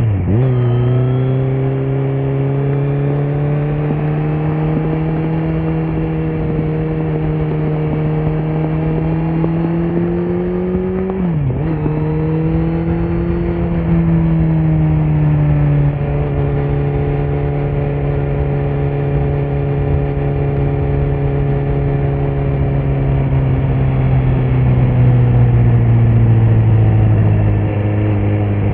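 Kawasaki Z900 inline-four engine through a Leo Vince muffler with no dB killer, riding under way. The revs drop sharply right at the start, as after a gear change, then hold fairly steady. There is a brief dip in revs about eleven seconds in, and from about halfway the revs ease slowly down.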